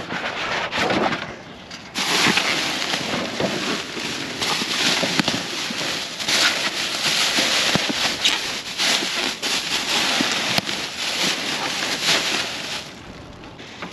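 Clear plastic trash bags crinkling and rustling as gloved hands grab and shift them: a dense crackle that eases off briefly about a second in and again near the end.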